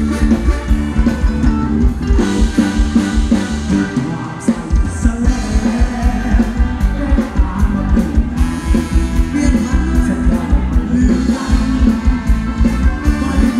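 Live band playing ramwong dance music: a steady drum beat under band instruments, with a singer.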